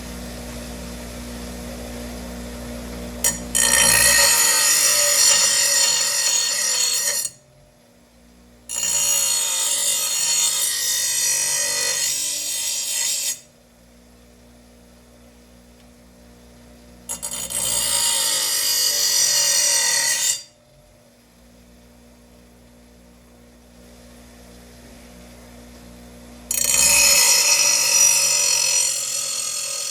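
Power grinder sharpening a steel lawn mower blade's edge in four passes of a few seconds each, with quiet gaps between them. A steady low hum runs for the first few seconds before the first pass.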